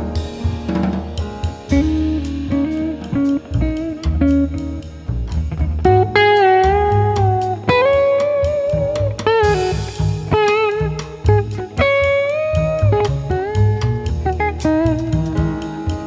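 Music: a guitar lead playing held notes that waver and bend, most strongly in the middle, over bass and a drum kit, in a blues-like style.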